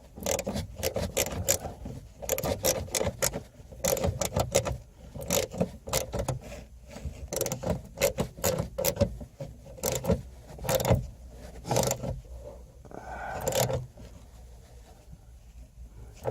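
Irregular clicking and scraping of hand work with a screwdriver and screws, fastening a replacement 6x9 speaker into a car's rear parcel shelf. It goes quieter near the end.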